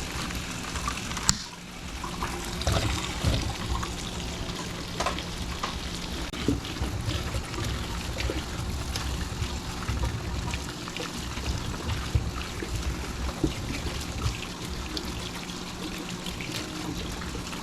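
Running water trickling steadily, with scattered small clicks and knocks.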